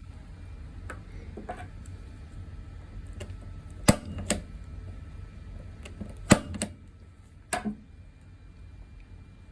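Punch-down tool seating the wires of a Cat 6 cable into the connector's terminals and trimming the excess: several sharp snaps, mostly in quick pairs, between about four and eight seconds in, with fainter clicks near the start.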